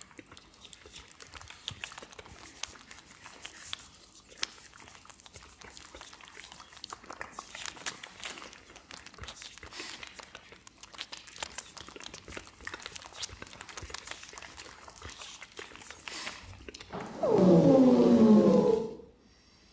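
Dense, irregular small crackles and clicks made by performers in a live piece of experimental music. Near the end a much louder sound lasts about two seconds, with several pitches sliding downward, and then stops sharply.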